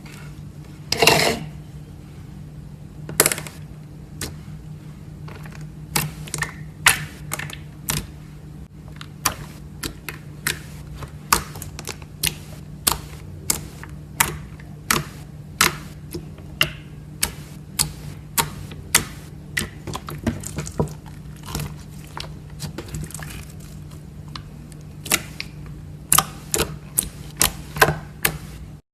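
Bubbly slime being poked and pressed, its trapped air bubbles popping in sharp clicks about one or two a second, over a steady low hum.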